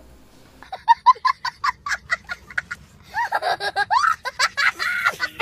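A young child laughing in quick repeated bursts, starting about a second in and growing louder past the middle.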